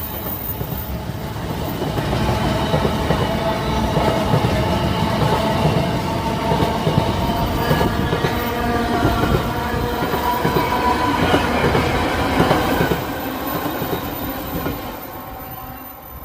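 Container freight train rolling past, its wagon wheels clattering over the rail joints with a thin ringing note above. The noise falls away over the last few seconds.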